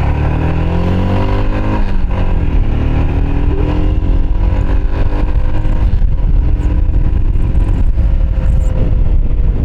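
Royal Enfield Himalayan 411's single-cylinder engine accelerating under way: it rises in pitch, drops sharply about two seconds in as it shifts up a gear, then climbs slowly and holds steady.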